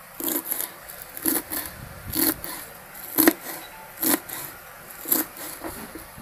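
Kitchen knife chopping through a bundle of tender water spinach (kalmi saag) stems and leaves on a cutting board: short crisp cuts roughly once a second, some in quick pairs.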